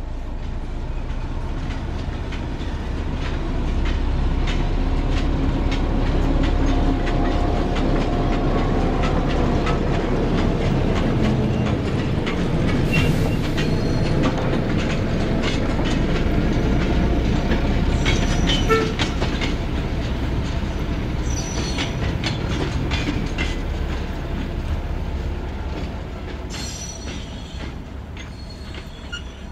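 British Rail Class 08 diesel shunter running with wagons, the engine rumbling and the wheels clicking over rail joints. It grows louder a few seconds in, then fades away over the last few seconds.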